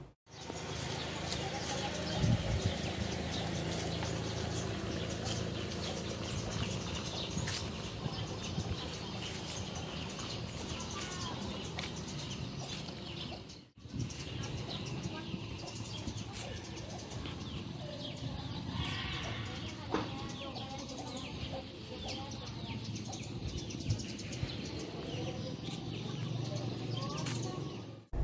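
Outdoor ambience with steady rustling noise on a phone microphone and occasional faint bird chirps; the sound drops out for a moment about halfway through.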